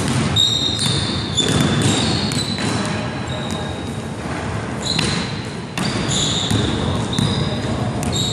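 A basketball being dribbled on a hardwood gym floor in a run of repeated bounces, with short high squeaks from sneakers on the court.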